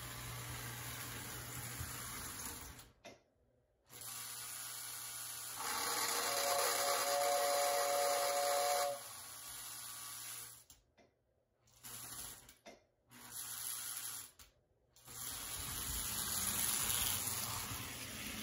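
Prewar Lionel 259E O-gauge locomotive running on tinplate track, a steady motor hum with the clatter of wheels on rail. About six seconds in, the 2689W tender's whistle blows for about three seconds: two steady notes over a rattling hiss, the classic rattly Lionel whistle. The sound cuts out abruptly several times.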